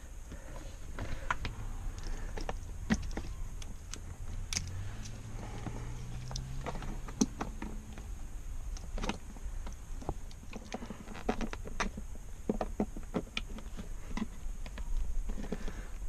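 Clicks, knocks and rattles of plastic interior trim and parts being handled and snapped into place on their clips. About five seconds in, a low hum rises slightly in pitch for a couple of seconds.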